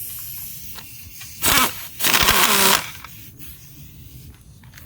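Impact gun running a new lock nut down onto the strut shaft in two bursts, a short one and then a longer one of just under a second.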